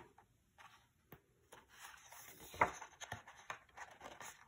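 A hand turning a page of a hardcover picture book: faint rustling and sliding of paper, loudest about halfway through.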